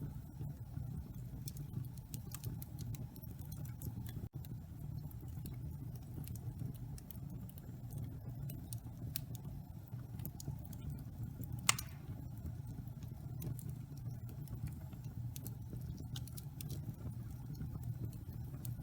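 Wood fire burning in a fireplace: a steady low rumble with scattered small crackles and one louder pop near the middle.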